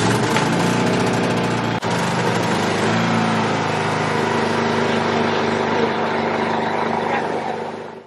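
Pramac PMi 2000 inverter generator's small gasoline engine running steadily just after its first start, then fading out near the end.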